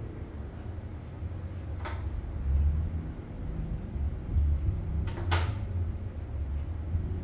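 A low, uneven rumble with a few sharp clicks: one about two seconds in and two close together about five seconds in.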